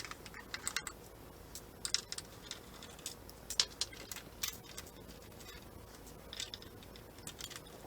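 Scattered light clicks and clinks of a hand screwdriver and small screws as screws are backed out of a 3D printer's plastic shell, with irregular ticks a few times a second.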